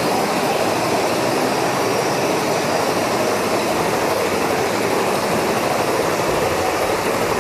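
Big Thunder Mountain Railroad mine-train roller coaster running on its track: a steady, loud rumble of the train rolling through the cave.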